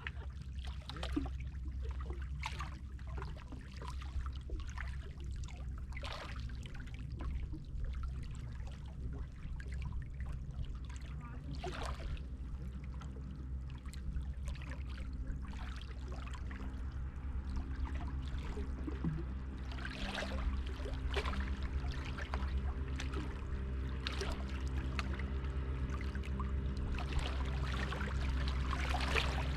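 Sea water splashing and lapping in irregular splashes over a steady low hum, the splashing growing louder in the last third.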